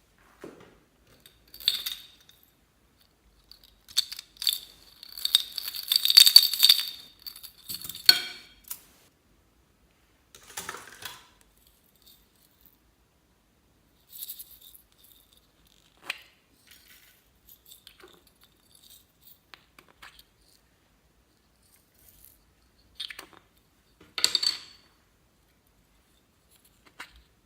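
Clear slime being handled and mixed with add-ins, in short bursts of crackling and clicking. The longest and loudest burst comes about six seconds in.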